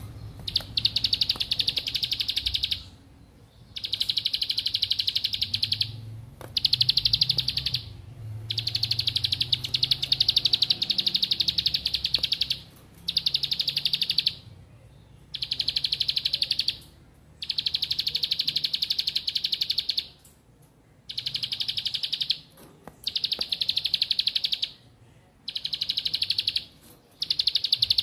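Caged plain prinia (ciblek) singing its rapid trilling song, about a dozen bursts of fast repeated high notes, each lasting one to three seconds, with short pauses between them.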